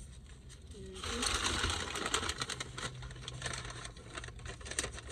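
Crinkling and rustling of takeout food packaging being handled, a dense run of small clicks and crackles that starts about a second in.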